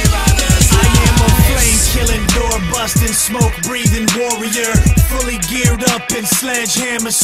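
Hip hop music: a rapped vocal over a hard drum beat with deep bass notes that slide downward.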